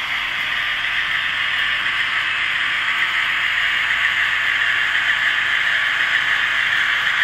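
Model CC 68000 diesel locomotive and hopper wagons running along the track, a steady hissing running noise that grows a little louder as the train approaches.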